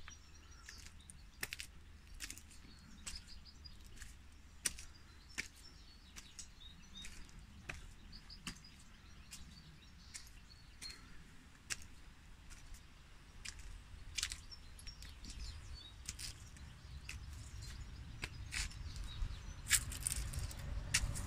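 Faint outdoor ambience: scattered bird chirps over irregular crunching steps on stone and dry debris. A low rumble swells over the last few seconds.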